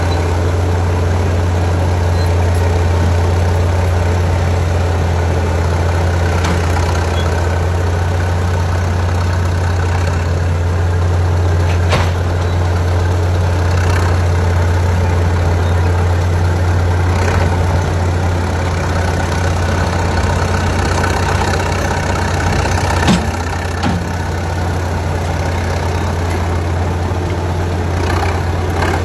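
Engine of a vintage track loader running steadily at a low, even speed, with a couple of brief knocks.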